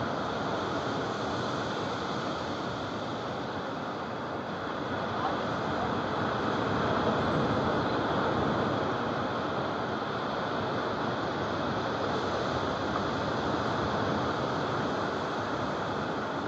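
Small surf breaking and washing on a sandy beach, a steady rushing that swells a little about halfway through.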